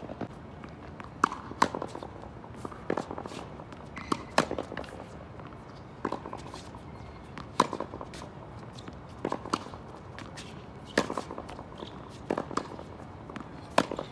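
Tennis ball struck with a racket and rebounding off a concrete practice wall in a steady rally, giving sharp pops, often in close pairs, about every one and a half seconds. Footsteps on the hard court come between the hits.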